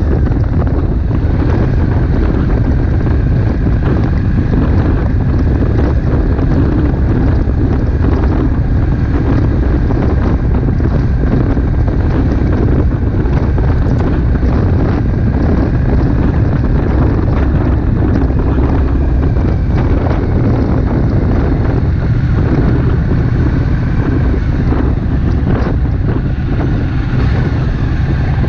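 Wind rushing steadily over the microphone of a moving motorcycle, with the Triumph Bonneville Street Twin's parallel-twin engine running underneath at a steady cruising pace.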